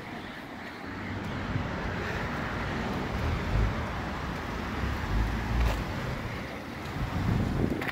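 Outdoor ambience: steady traffic noise with wind buffeting the microphone, which brings low rumbling gusts about three and a half and five seconds in.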